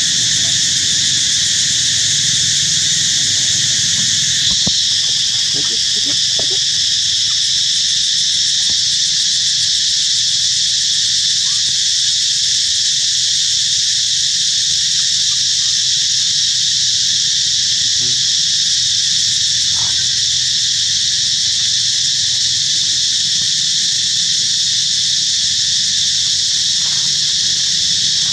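Loud, steady chorus of insects buzzing without a break, with a few faint short sounds around five seconds in and near twenty seconds.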